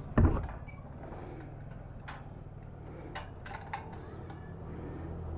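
Handling of a metal gate and its combination padlock: a heavy thump at the start, then a few sharp metallic clinks, over a steady low hum.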